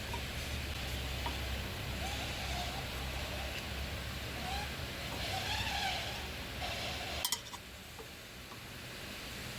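Steady low hum of a Nissan X-Trail T32 on the move: the humming noise blamed on a worn rear right wheel bearing. A sharp click comes about seven seconds in, after which the hum drops away.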